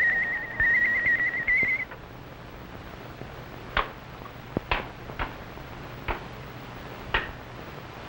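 Warbling, high electronic whine of the lab's matter-transmitter sound effect as the materialization finishes; it cuts off about two seconds in. A handful of sharp, separate clicks follow over low hiss.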